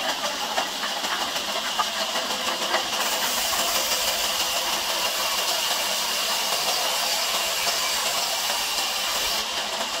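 Large log band saw cutting through a log lengthwise, giving a steady hissing saw noise. The hiss turns sharper from about three seconds in until near the end.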